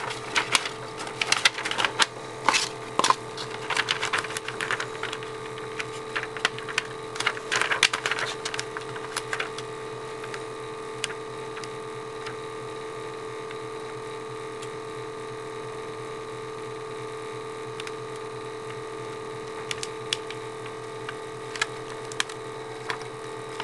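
Crackling and clicking of transfer tape and vinyl backing paper being handled and pressed down, busy for the first nine seconds or so, then only a few scattered clicks over a steady background hum.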